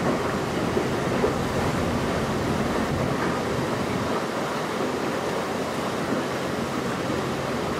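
Motorboat running steadily under way, its engine a low steady drone under the rush of water along the hull, with wind on the microphone.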